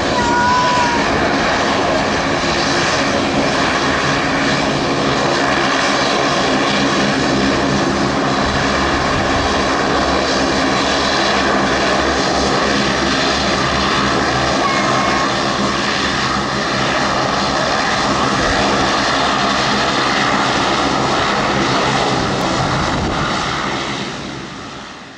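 Boeing 777-200LR's GE90 turbofan engines at takeoff thrust as the airliner accelerates down the runway, lifts off and climbs away: a loud, steady jet noise with several whining tones running through it, fading out near the end.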